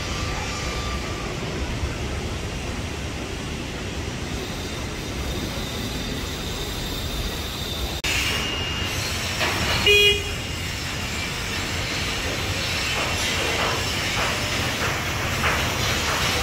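Steady low rumble and hiss of construction-site background noise. About ten seconds in there is a short, loud tone, like a toot.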